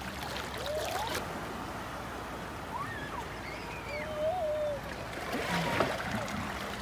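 Water splashing and dripping from a hand net as it is lifted out of shallow water, with louder splashes about a second in and again around five to six seconds in.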